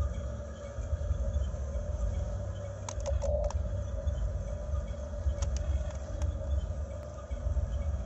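Electric gear motors of a Huina RC excavator whining steadily as the boom and bucket move, over a low rumble. A quick cluster of sharp clicks comes about three seconds in, and a few single clicks follow later.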